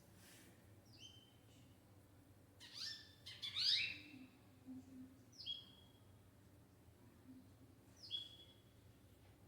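Short, high-pitched animal calls over a faint background. Several quick calls sweep down and settle on a brief held note, spaced a few seconds apart, with a louder run of rising calls about three to four seconds in.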